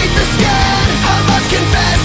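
Hard rock music with a driving drum beat and distorted guitars, loud and steady.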